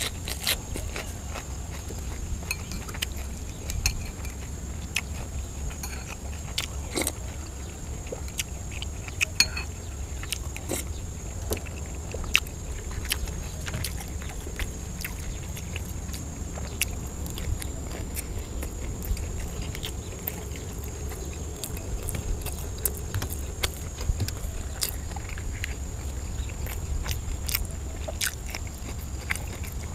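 Close-up chewing and biting on sausages, with scattered short wet clicks and smacks of the mouth. A steady high-pitched whine and a low rumble run underneath.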